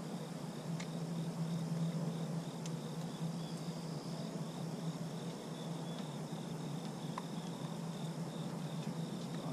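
Insects chirping in an even pulsing rhythm, about three high chirps a second, over a steady low hum.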